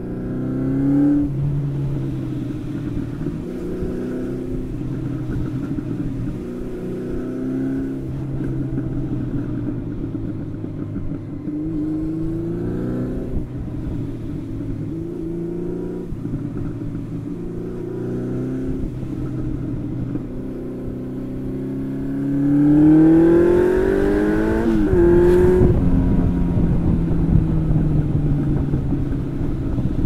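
1992 Honda CB750 Nighthawk's carburetted air-cooled inline-four running on the road through its stock exhaust without mufflers, its pitch rising under acceleration and dropping at each gear change. Near the end it revs up hard in one long rise, shifts sharply to a lower pitch, and wind rushes over the microphone.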